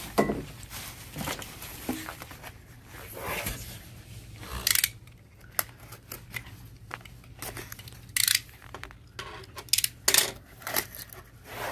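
A box cutter slitting the packing tape on a cardboard box in several short strokes, with the box being handled on a table.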